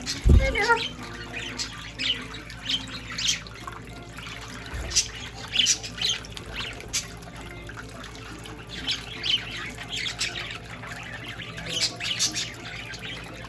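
Young budgerigars chirping and squawking in short, repeated calls over steadily trickling fountain water and a low hum. There is one low thump at the very start.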